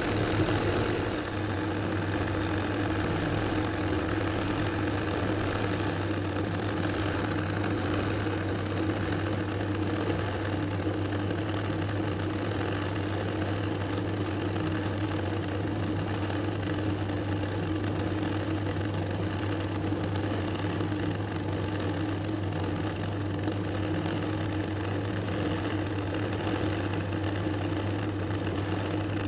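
Electric sewing machine running steadily while stitching embroidery, its motor humming without a break.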